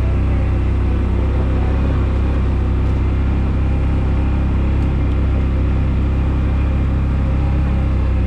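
Engine of a utility vehicle running steadily at low speed while riding, a constant low hum with no revving.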